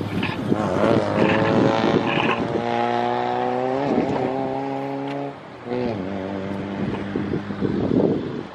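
A motor vehicle's engine running steadily with a low hum. It drops away briefly about five seconds in, then resumes at a different pitch.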